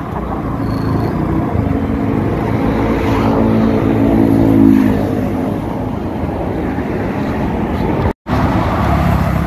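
Riding on a motorcycle: steady wind rumble on the microphone over the engine, with an engine hum that swells and fades in the middle. The audio drops out for a moment near the end.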